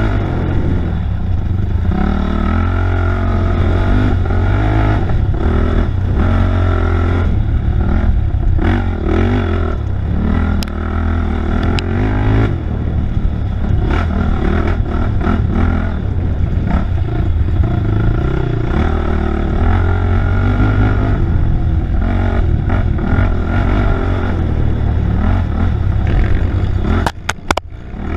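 Off-road race vehicle's engine revving up and down continuously as it is ridden hard over a rough dirt trail, over a constant low rumble. Near the end the engine briefly drops off with a few clicks before picking up again.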